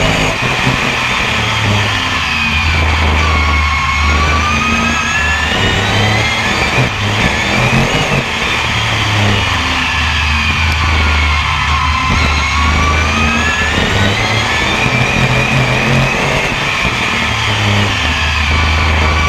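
BriSCA F1 stock car's V8 engine racing, heard from on board: its pitch drops off and climbs back up twice, about every eight seconds, as the car slows for the bends and accelerates down the straights.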